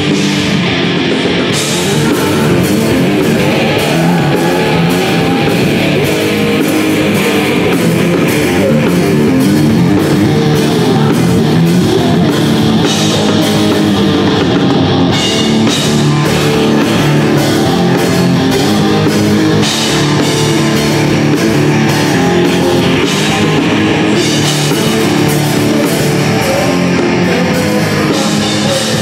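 Alternative rock band playing live: electric guitars over a drum kit, loud and steady, with a regular drum beat.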